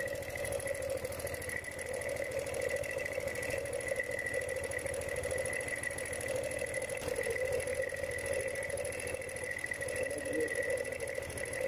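An engine running steadily at idle: an even drone with a faint thin whine above it.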